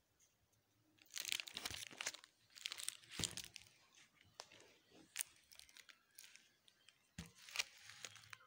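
Plastic photo-album sleeves crinkling and rustling as the album's pages are turned by hand, in several bursts with a few sharp clicks.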